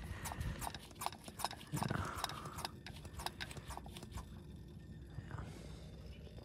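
Hand-held vacuum brake-bleeding pump being squeezed again and again, clicking irregularly as it draws old brake fluid from the rear caliper's bleeder into the catch cup. There is a low thud with a brief hiss about two seconds in, and the clicks thin out after about four seconds.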